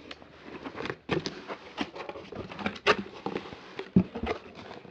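A cardboard box being opened and its packaging handled: irregular rustling with scattered sharp taps and clicks.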